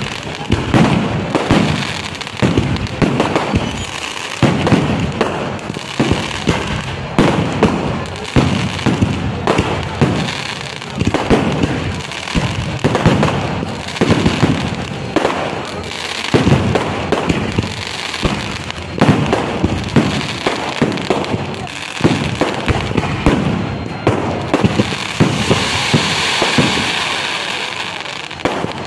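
Aerial fireworks display: a continuous barrage of shell bursts, sharp bangs following each other several times a second. Near the end the bangs thin out under a steady high hiss.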